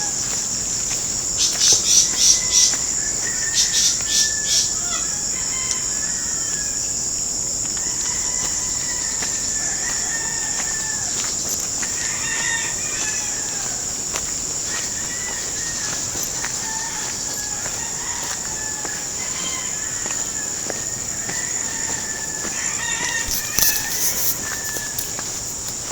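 Roosters crowing again and again with some clucking, over a steady high-pitched insect drone. Bursts of quick chirps come near the start and again near the end.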